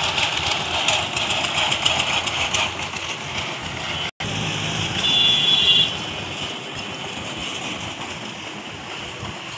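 Street traffic going by: a two-wheel tractor's small engine chugging rapidly as it pulls past, then a truck driving through. About five seconds in there is a short, louder stretch with a steady high tone, like a horn.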